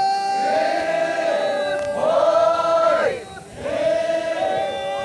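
A group of men and women singing a Sangtam Naga folk chant in unison. They hold long notes in phrases of a second or two, with a short breath pause a little past halfway.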